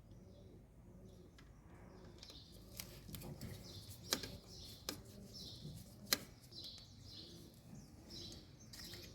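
Birds chirping faintly and repeatedly in the background, with a few sharp clicks from handling the carbon brush holders of a washing machine's brushed wash motor as the brushes are taken out for inspection.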